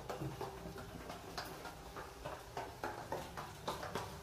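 Footsteps going up stairs, a quick, even run of light steps, about three a second, over a faint low hum.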